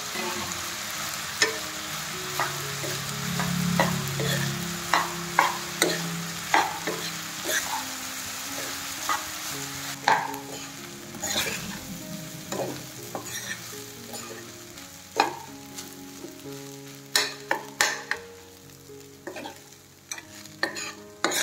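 Rice sizzling in hot oil in a frying pan while a metal spoon stirs it, with frequent sharp scrapes and knocks of the spoon against the pan.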